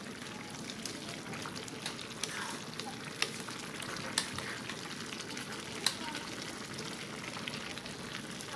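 Pan of braised vegetables and tofu bubbling and sizzling steadily on the stove, with a few light clicks of a utensil against the pan.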